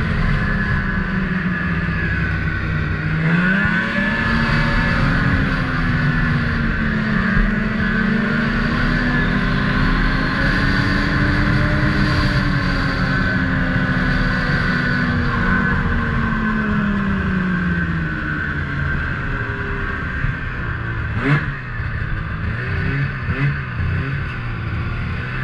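Snowmobile engine running under throttle as the sled crosses the snow. Its pitch rises about three seconds in, holds, then falls away as it slows, with a short knock a little past twenty seconds.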